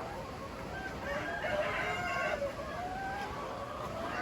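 A flock of laying hens calling and cackling, several drawn-out rising and falling calls overlapping one another.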